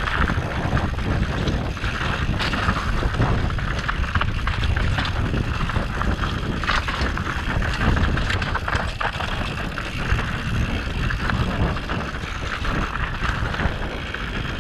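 Mountain bike riding down a dirt trail: wind rushing over the microphone with the bike rattling over the ground, broken by many small knocks from bumps.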